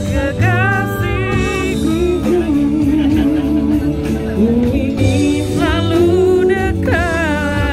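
Live band playing: a woman singing with vibrato through a microphone, backed by a Korg keyboard and electric guitar over a steady bass. The voice drops out for an instrumental phrase in the middle, then comes back.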